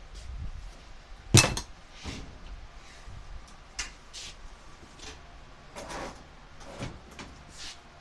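One sharp knock about a second and a half in, then scattered lighter clicks and knocks of things being handled and set down on the clothes dryer.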